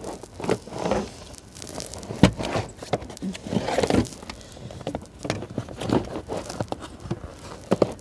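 Rubber car floor mat being set back into the driver's footwell: irregular knocks, thuds and rustling, with one sharper thunk about two seconds in.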